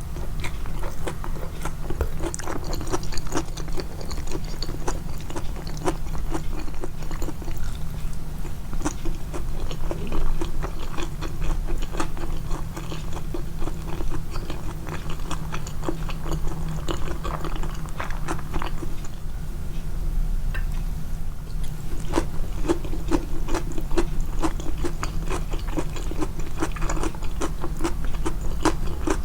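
A person chewing and biting food, miked close so that the wet chewing and small crunches are loud and clear; the clicks come continuously throughout.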